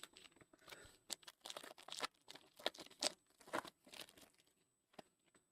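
A trading card pack's foil wrapper being torn open and crinkled by hand, a quick run of crackling rips over about four seconds, followed by a single light click.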